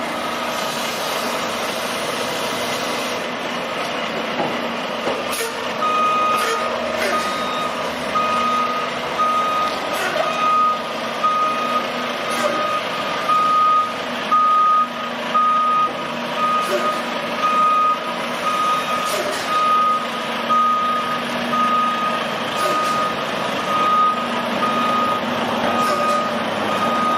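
Reversing alarm beeping steadily, a little over one beep a second, becoming clear about six seconds in, over the low running of a Volvo semi truck's diesel engine as it backs a trailer.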